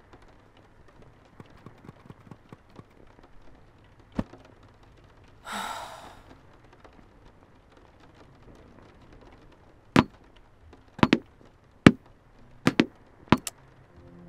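Sharp clicks of a handheld remote control's buttons being pressed, a string of them in the last four seconds, some in quick pairs, with one click earlier. A breathy sigh comes about five and a half seconds in.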